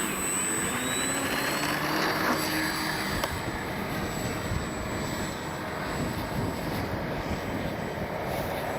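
Brushless electric motor and propeller of an FMS Ranger 1220 mm foam RC plane running under throttle, its whine rising in pitch in the first few seconds, over a steady rush of strong wind.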